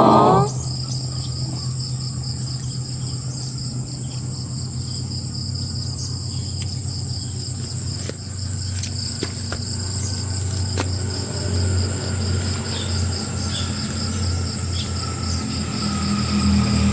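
Crickets chirping in a steady, fast-pulsing high trill, over a low steady hum.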